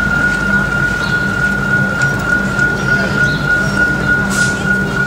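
Railway level crossing warning bell ringing steadily, one constant high tone.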